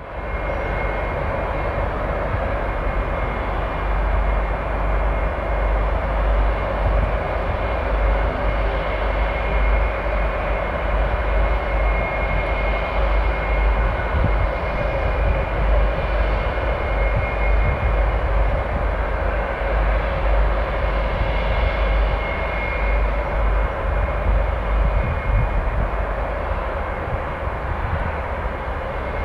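Airbus A319 jet engines running at taxi power as the airliner taxis, a steady engine noise with a deep rumble and a high, even whine.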